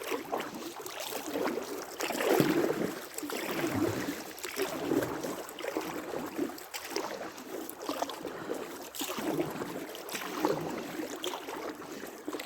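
Oars dipping into the water and pulling the boat along, giving a swishing splash roughly every second or so.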